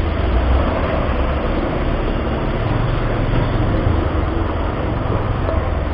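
Steady low rumble of a Bajaj Pulsar 150 single-cylinder motorcycle riding slowly on a rough lane, mixed with road noise and the engines of buses close alongside.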